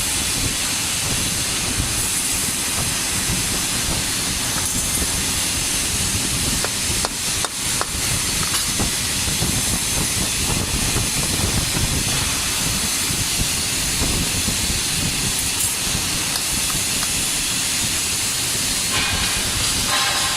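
TIG welding arc from an Omega 350T welder, a steady crackling hiss, with a brief break about seven seconds in.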